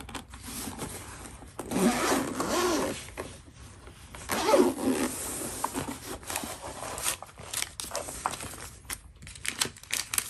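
Zipper on a fabric-covered carrying case being pulled open around the case in two long strokes, about two and four and a half seconds in, followed by short clicks and knocks as the case is handled and opened.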